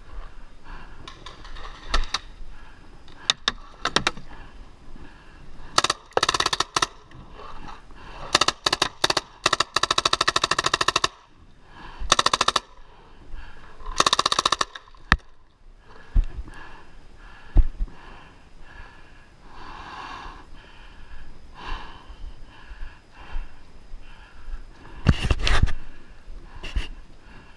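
Paintball marker firing: a few single shots, then several rapid full-auto bursts, with another burst near the end.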